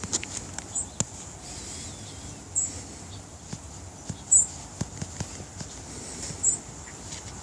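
Small clicks and knocks of a camera being handled while its power button is pressed, with four short high chirps at about two-second intervals louder than the clicks.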